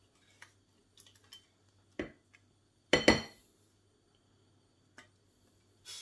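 A silicone spatula scraping and knocking against a stainless steel saucepan as thick cream is scraped out into a glass bowl: scattered short clicks and knocks, the loudest, with a brief ring, about three seconds in and another cluster near the end.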